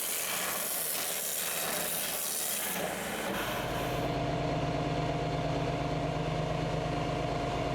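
TurboPierce ultra-high-pressure abrasive water jet hissing steadily as it cuts, then shutting off about three seconds in. A steady engine and pump hum with a constant tone is left from the fire pumper running.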